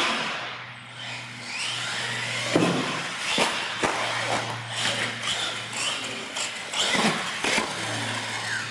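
Electric R/C monster truck's motor whining, rising and falling as the throttle is worked, with several sharp knocks as the truck lands and bangs onto the concrete floor.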